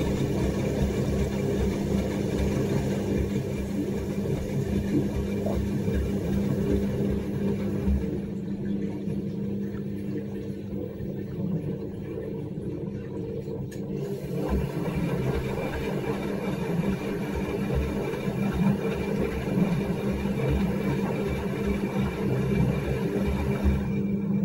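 Whirlpool FL5090/A front-loading washing machine's drain pump running with a steady hum, pumping the wash water out of the drum.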